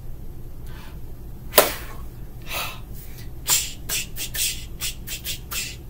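Mouth percussion: a single sharp smack about a second and a half in, then a quick, irregular run of short hissing clicks.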